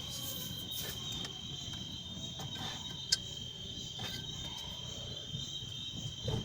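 Crickets chirring steadily in the background, with one sharp click about three seconds in.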